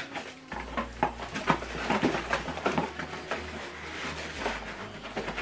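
Cardboard box and plastic-bagged cables being handled: irregular rustling with light knocks and taps.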